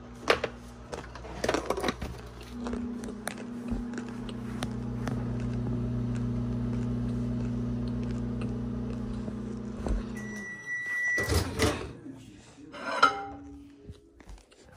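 Built-in microwave oven running with a steady low hum while melting butter in a glass measuring cup. The hum stops about ten seconds in, a single long beep sounds for the end of the cycle, and then the door clunks open and the glass cup clatters as it is taken out.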